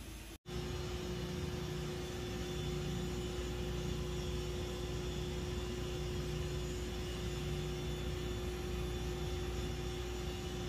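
Steady mechanical hum and low rumble of workshop machinery, with one held tone and no changes. It starts abruptly about half a second in. No welding arc is heard.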